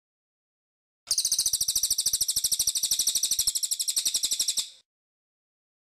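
Cililin songbird singing one rapid, high-pitched trill of about a dozen notes a second, starting about a second in and lasting nearly four seconds.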